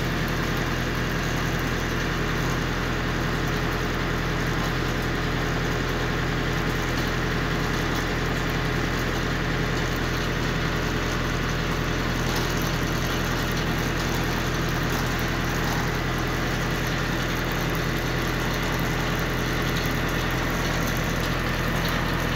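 Tractor engine running steadily, driving a PTO winch through its driveshaft; an even, unchanging hum.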